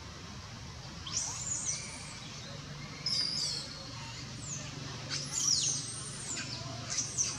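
High-pitched animal calls: groups of sharp chirps and squeaks with quick downward sweeps, coming about a second in, again near the middle and twice more toward the end, over a steady low hum.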